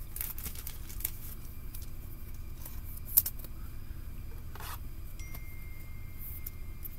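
Trading cards being handled and set down on a table: light clicks and rubbing of card stock, with one sharp tap about three seconds in, over a steady low hum.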